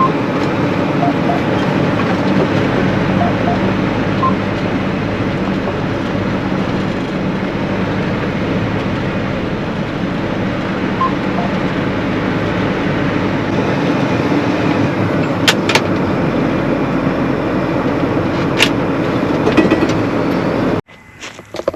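Combine harvester running in soybeans: a dense, steady engine-and-machinery drone with a few sharp ticks late on. It cuts off abruptly near the end.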